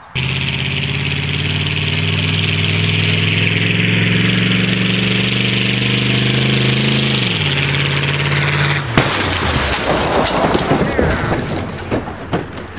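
A car engine running at steady, raised revs, which fall away about seven seconds in; about nine seconds in it gives way to a noisier clatter with some voices.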